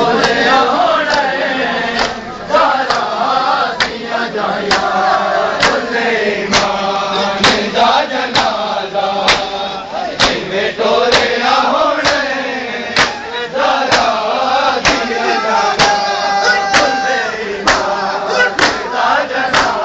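A crowd of men chanting a mourning lament (noha) together while beating their chests in matam. The hand-slaps land in unison about once a second under the singing.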